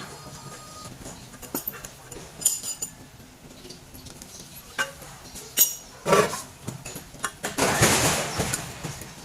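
Metal tools and parts clinking and knocking, a few separate sharp clinks with a brief ring, while a brake rotor is being replaced; near the end comes a longer noisy rush lasting about a second and a half.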